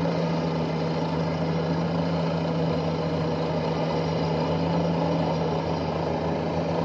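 Iseki rice combine harvester running steadily as it drives through the paddy cutting rice: an even, unbroken engine and machinery drone with a constant low hum.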